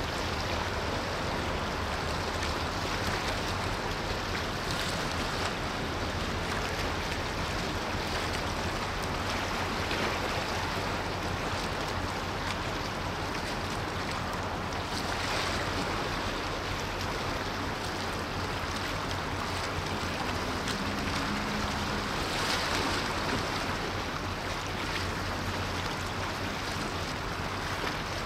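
Steady rushing of wind and water at the waterside, with a low steady hum underneath. A faint, short low tone sounds about twenty seconds in.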